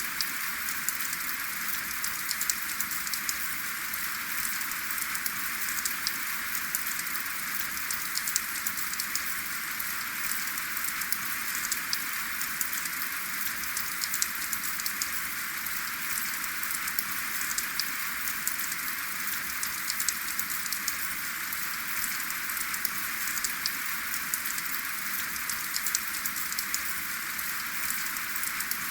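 Steady rain falling without thunder, with many separate drops ticking sharply over an even hiss.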